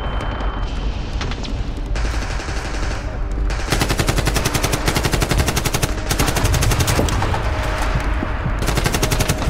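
Battle sound effects of rapid automatic gunfire over a deep rumble, the shots coming in long bursts that pause briefly twice. A high steady ringing tone dies away in the first second before the firing builds.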